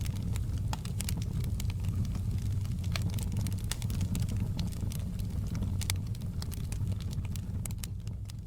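Wood fire crackling in a fireplace: frequent sharp, irregular pops and snaps over a steady low rumble of the burning fire.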